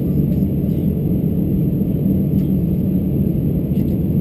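Steady low rumble with a constant hum in the cabin of a stationary Airbus A321, heard from a window seat.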